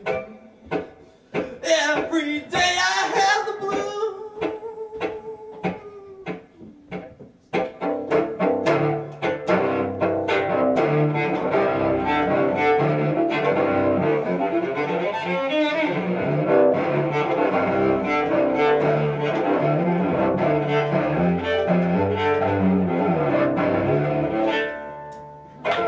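Solo cello: short separate notes for the first several seconds, then bowed steadily from about a third of the way in, in a dense, fast-moving passage that drops away just before the end.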